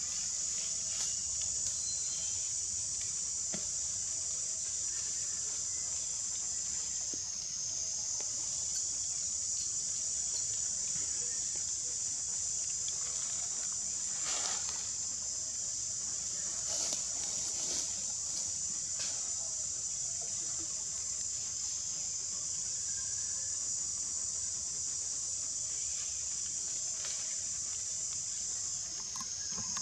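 Steady, high-pitched outdoor insect chorus, with a few faint short rustles or clicks around the middle.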